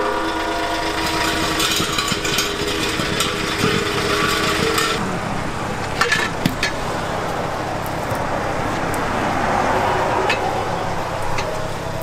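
Steel LPG gas cylinders being handled and set down, with a couple of sharp metal knocks about six seconds in. A vehicle engine runs steadily under it and stops about five seconds in.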